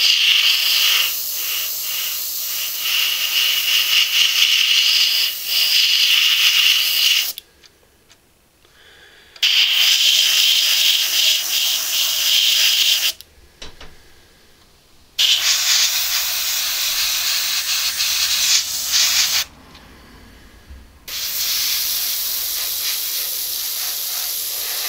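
Spray paint hissing from the nozzle in four bursts of several seconds each, with short pauses between, as a plastic model hull is coated.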